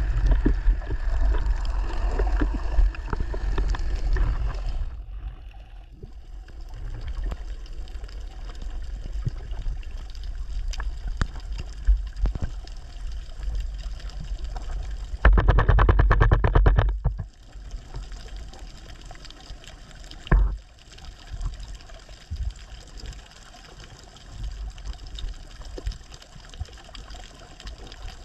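Underwater sound picked up by a camera mounted with a speargun during a free dive: a steady low water rumble with scattered small clicks. About halfway through, a loud rattling burst of rapid clicks lasts roughly two seconds.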